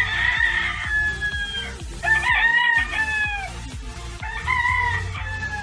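Roosters crowing: three long crows one after another, each dropping in pitch as it trails off.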